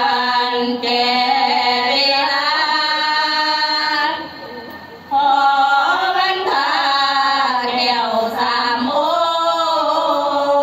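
Women's sorapanya troupe chanting a Thai Buddhist verse in long, drawn-out melodic phrases with gliding pitch. There is a short breath break about four seconds in before the next phrase.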